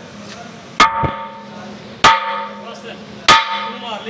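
Three heavy hammer blows, evenly spaced about a second and a quarter apart, on the spoked flywheel of an ammonia compressor, each with a short metallic ring: the wheel is being knocked loose to remove it from its shaft.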